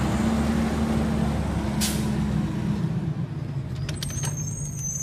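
Republic Services garbage truck's diesel engine running as the truck moves off, with a short hiss of its air brakes about two seconds in. The engine drone fades over the last couple of seconds as the truck draws away.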